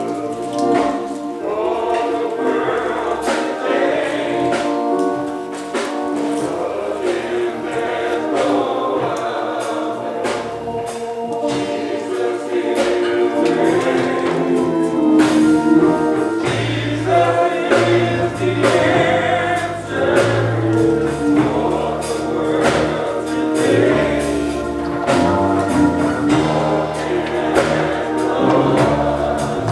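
Choir singing gospel music, backed by a band with bass and a steady beat of percussion that includes tambourine.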